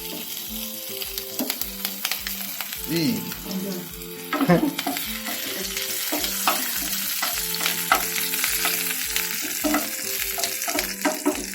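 Onion and chilli sizzling as they fry in hot oil in a pan, with a spatula stirring and scraping against the pan in frequent sharp clicks.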